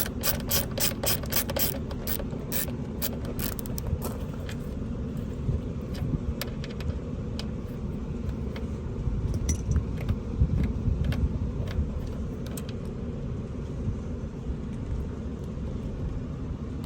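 Socket ratchet clicking rapidly while a T30 Torx bolt is turned out. The clicks thin out after a few seconds to occasional ones, leaving a low rumble.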